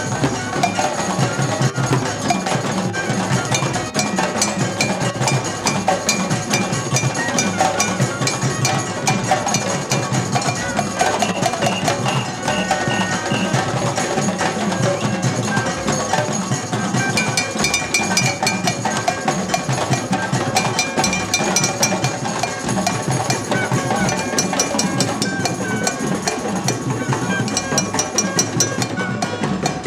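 Drum circle of many hand drums (djembes, congas and a shoulder-slung drum) played together in a dense, continuous rhythm, with steady high ringing tones above the drumming.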